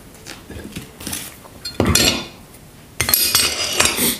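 Small metal parts of car LPG equipment clinking and clattering as they are set down on a hard surface. There is a louder knock about two seconds in and a longer run of rattling and clinking near the end.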